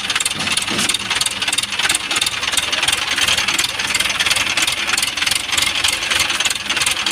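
ACE 12-tonne hydra crane's diesel engine running steadily while the crane holds a cable drum on its hook.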